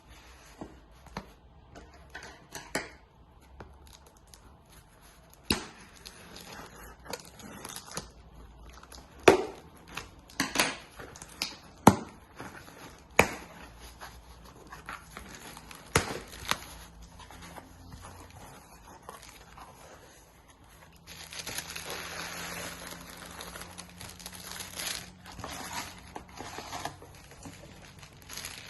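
Packaging of a cosmetics gift set being handled and opened: scattered sharp taps and clicks, then, from about two-thirds of the way in, a steady crinkling of wrapping.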